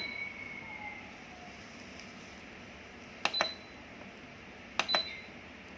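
Bread machine control-panel buttons being pressed twice, about a second and a half apart. Each press is a quick double click followed by a short high beep.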